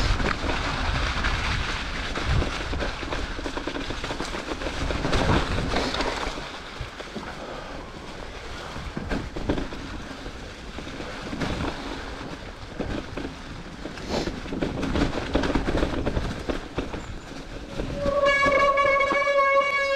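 Rough rolling and rattling noise of a Cube mountain bike riding a trail. Near the end comes a loud, steady disc-brake squeal of about two seconds, a brake noise the rider traced to air in the brake line.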